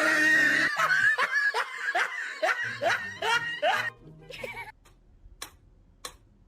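Laughter, a fast run of repeated "ha" syllables for about four seconds over background music, then a few sharp clicks.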